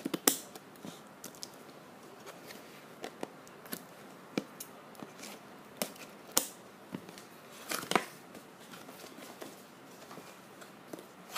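A cardboard box being handled and cut open with scissors: scattered clicks, scrapes and rustles of card and tape, with the loudest snaps right at the start, about six seconds in and about eight seconds in.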